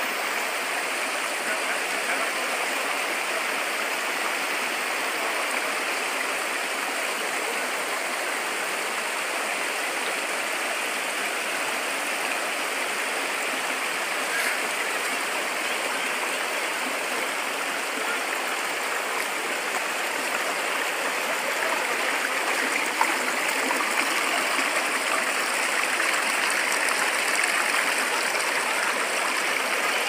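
Steady rush of water cascading over rocks at a waterfall-fed stream, a little louder over the last several seconds.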